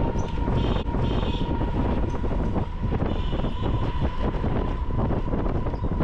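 Riding in a rickshaw on a paved road: steady road rumble with many small rattles and knocks from the rickshaw, plus wind on the microphone. A faint steady whine runs throughout, and a brief high tone sounds about a second in.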